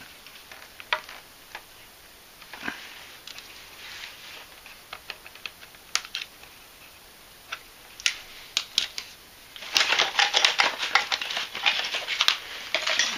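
Scattered light clicks and taps of a rubber fuel hose and its clip being worked onto the fitting of a small-engine fuel pump. About ten seconds in, a louder, dense run of clicks and rattles follows.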